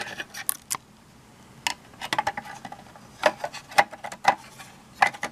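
Irregular small clicks and taps from a multimeter's circuit board, wires and case being handled and fitted together during reassembly.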